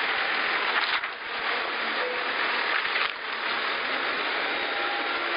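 Wheel loader engine running steadily close to the microphone, heard as a dense rushing noise, with two brief dips about one and three seconds in.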